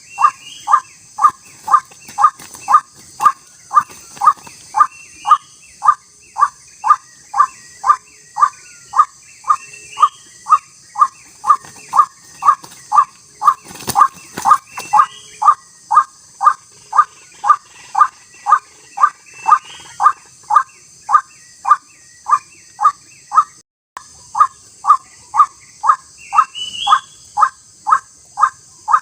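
White-breasted waterhen calling: a loud, even 'kwak' note repeated about twice a second, with an occasional higher rising note, over a steady high insect buzz. The calling breaks off suddenly near the end, then starts again.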